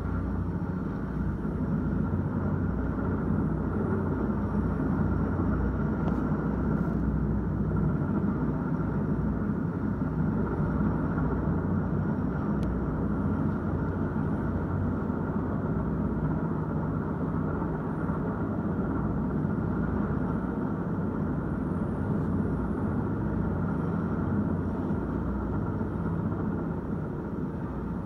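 Steady, muffled rumble of a helicopter's rotors and engine, heard through the window glass of a high-rise from far above.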